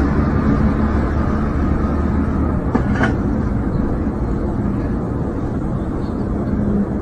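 Steady rumbling outdoor noise with no music, easing slightly in level, with a couple of faint knocks about three seconds in.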